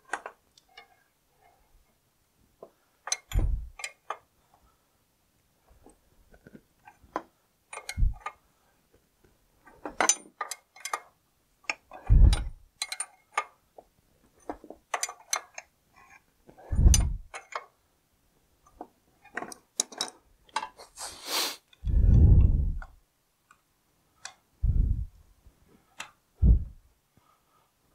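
Scattered metallic clicks and clinks of hand tools and a nut on the threaded rod of a clutch spring compressor as a tractor clutch pressure plate's springs are being compressed, with several dull low thumps a few seconds apart.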